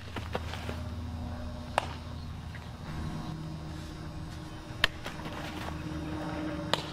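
A softball smacking into leather gloves: three sharp pops, about two seconds in, near five seconds and near the end. The last two are about two seconds apart, the catch in the catcher's mitt and then the throw-down reaching the glove at second base. Under them a steady low hum.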